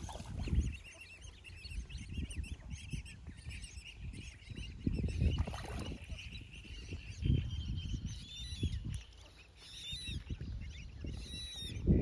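Young mallards peeping: many short, thin, high calls, coming in quicker runs near the end. Irregular bursts of low rumble lie underneath.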